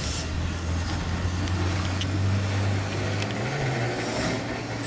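A steady low engine hum whose pitch shifts slightly about three and a half seconds in, with a few faint clicks.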